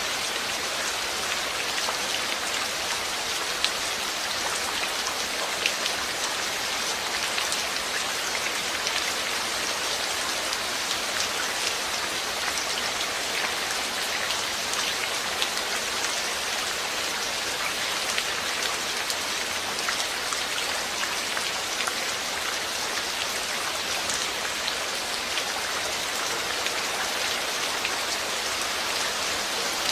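Steady rainfall, with many individual drops pattering sharply on a surface over an even hiss of rain.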